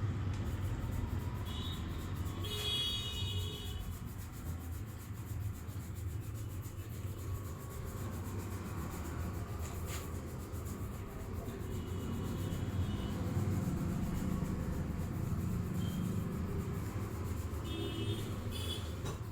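Steady low rumble of road traffic, with a few short high-pitched tones and a single sharp click about ten seconds in.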